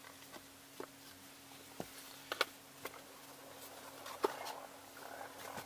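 Light clicks and knocks of small plastic GoPro action cameras and their hard-shell case being handled, about seven scattered taps with a quick double click about halfway through and the loudest knock a little after, over a faint steady hum.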